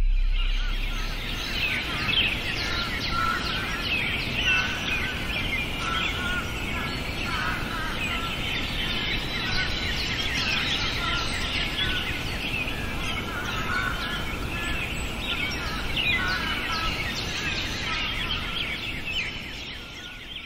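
A chorus of many birds chirping and calling at once over a steady low outdoor background, fading out near the end.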